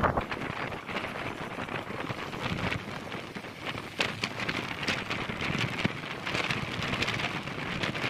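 Wind rushing past the open window of a moving bus, mixed with road noise: a steady hiss with scattered crackles and no clear engine tone.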